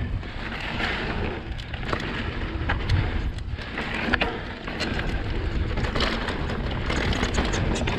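2020 Vitus Sommet CRS mountain bike ridden fast down loose, dusty singletrack: tyres rolling over dirt with a steady rush of wind on the microphone, and many sharp clicks and knocks from the bike as it rattles over the ground.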